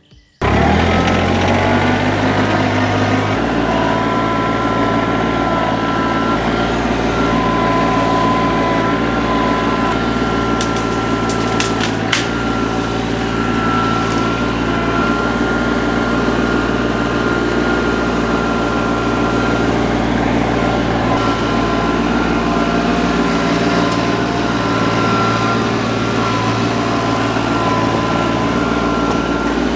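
Compact diesel tractors and a PTO-driven wood chipper running steadily, a high whine held over the engine sound. A few sharp clicks come about eleven to twelve seconds in.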